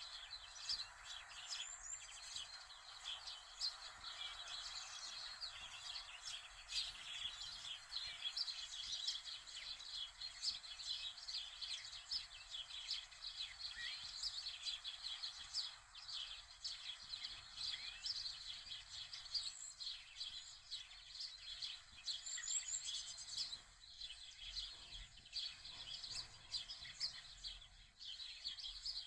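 Many small birds chirping together in a dense, unbroken chorus of short high chirps.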